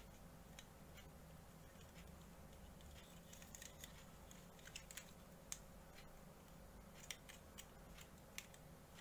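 Faint, scattered clicks and small knocks of hard plastic SD Gundam model-kit parts being handled and pressed together, most of them in the second half, over a low steady hum.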